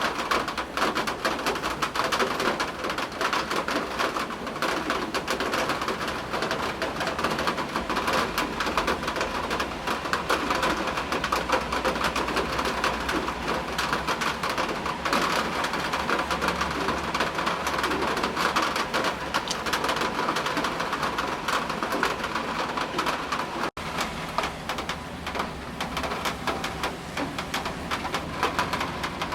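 Steady rain pattering on a surface: a dense, even crackle of drops, with a split-second gap near the end.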